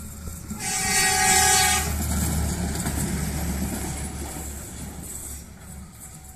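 Rail maintenance train (Atlas crane vehicle with a Plasser & Theurer track machine) sounding one horn blast of just over a second, about half a second in. Its engine rumble and wheel clatter on the rails fade as it moves away.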